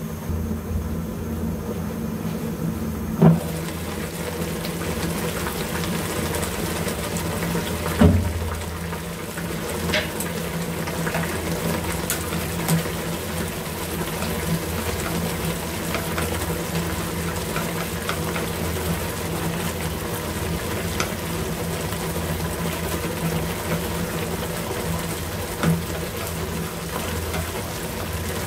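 Tomato and pig lung soup bubbling steadily at a simmer in a pan, with a low steady hum underneath. Wooden chopsticks stir it, with a few sharp knocks against the pan or its lid, the loudest about 3 and 8 seconds in.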